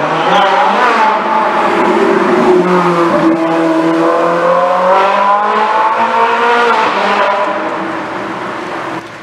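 Supercar engine running loud, its pitch sinking and then rising again as it revs through the gears, easing off near the end.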